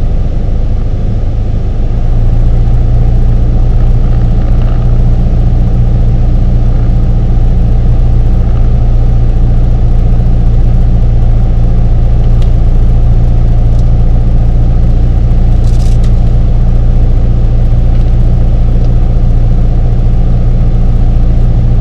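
Piper PA-28's piston engine and propeller in cruise flight, heard inside the cabin as a loud, steady drone that grows louder about two seconds in and then holds.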